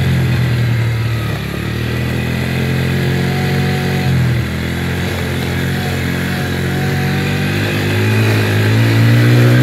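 Engine of an off-road vehicle running while riding along, its pitch dipping and rising with the throttle and climbing near the end.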